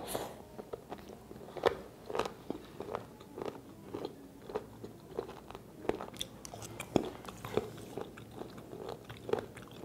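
Close-up chewing of raw abalone: a run of sharp, clicking chews, about two a second.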